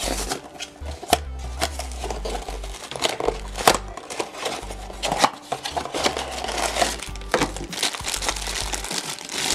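A cardboard blind box being opened and a black foil bag crinkling and rustling in the hands, with many sharp crackles. Background music with a steady bass line plays underneath.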